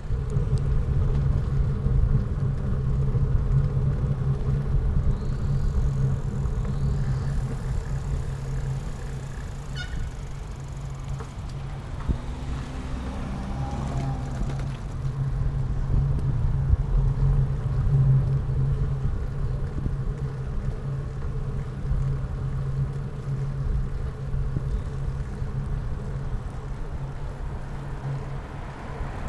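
A road vehicle running steadily while riding, a continuous low drone with road and air noise over it.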